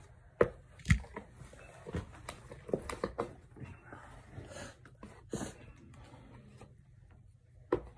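Irregular knocks, taps and short rustles of objects being handled on the surface where the phone lies, with two loud sharp knocks about half a second and a second in.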